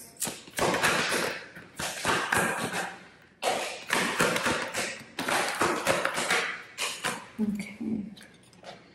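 Tarot cards being shuffled and handled: a run of brisk rustling slaps and taps of cards, fading near the end.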